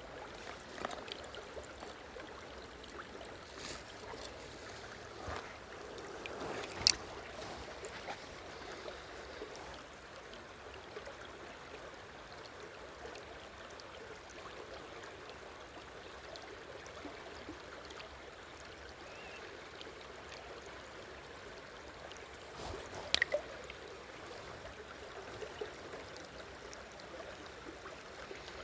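Stream water running steadily, with a few short sharp clicks, the loudest about seven seconds in and again around twenty-three seconds in.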